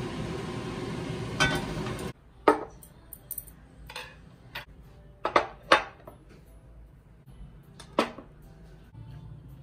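Tableware set down on a table: a ceramic bowl, metal chopsticks and a drinking glass placed one after another, making several sharp knocks and clinks. A steady rushing noise runs underneath at first and cuts off suddenly about two seconds in.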